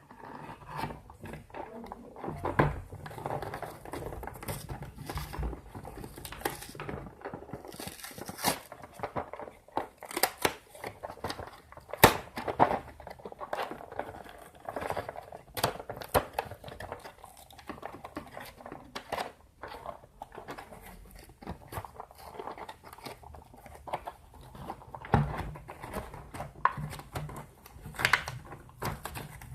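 Packaging being opened by hand: irregular crinkling and tearing of wrapping, with many sharp clicks and knocks of parts being handled.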